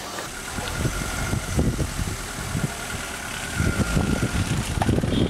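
Vehicle engine idling, an uneven low running sound that grows louder for the last second or so.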